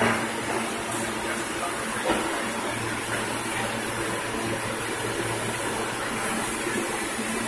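New York City Subway R160 car standing at the platform, giving a steady hum and hiss, with a single knock about two seconds in.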